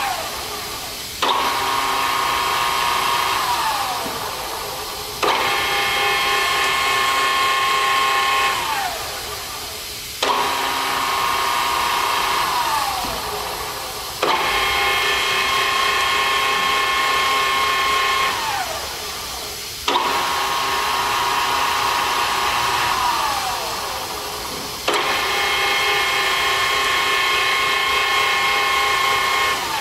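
Wilton 2456 geared-head drill press motor and gearbox starting and stopping over and over, about six times. Each time it cuts in suddenly with a steady whine, runs for a few seconds, then winds down with a falling whine.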